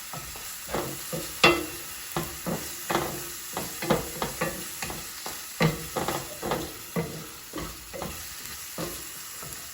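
Chopped onion and garlic sizzling in olive oil in a hot cast iron skillet, with a utensil stirring them and knocking and scraping against the pan a few times a second.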